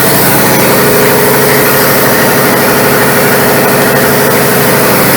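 Vacuum pump running steadily with a constant hum and hiss while it draws the old brake fluid out of the brake system.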